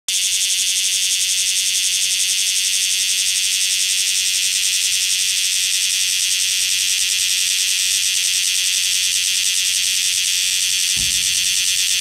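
Cryptotympana facialis (bear cicada) singing: a loud, continuous, high buzz with a fast, even pulsing. A brief low thump comes near the end.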